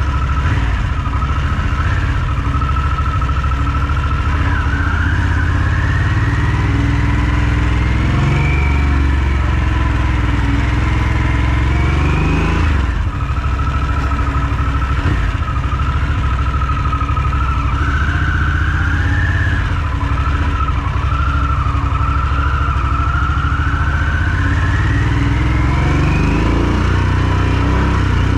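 Harley-Davidson Sportster S's liquid-cooled V-twin running under way at low speed. A deep rumble and a whine rise in pitch as it gathers speed, drop sharply about halfway through, and climb again near the end.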